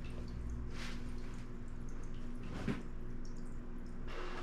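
Aquarium filter running: a steady low hum with water trickling. A few brief rustles of clothing being handled break in, about a second in, near three seconds, and at the end.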